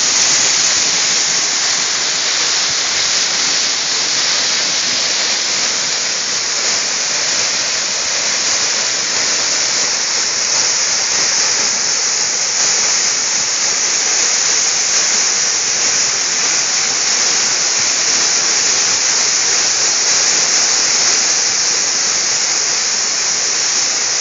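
Waterfall pouring down a rock face, heard from right beside the falling water: a loud, steady rush of water with no let-up.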